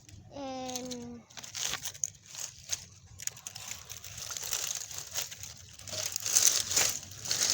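Dry leaves and twigs crunching and rustling with irregular snaps, as of someone walking through yard litter and picking through sticks. A short pitched voice-like sound with a slightly falling tone is heard near the start.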